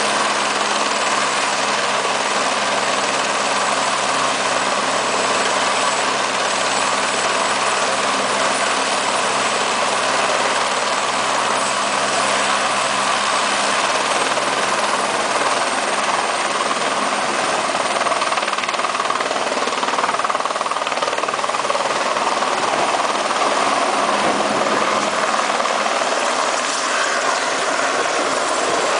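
Eurocopter AS350 Écureuil (Esquilo) helicopter's turboshaft engine and rotor running steadily on the ground, a constant turbine whine with rotor blade noise. The helicopter lifts off near the end.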